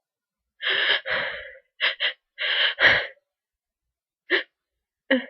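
A person with a cold building up to a sneeze: short, sharp, breathy gasps, mostly in quick pairs over the first three seconds, then two brief catches of breath near the end.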